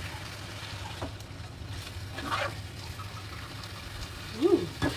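Fried instant noodles sizzling in a frying pan as they are tossed with metal tongs, with light clicks of the tongs against the pan. A short vocal sound comes near the end.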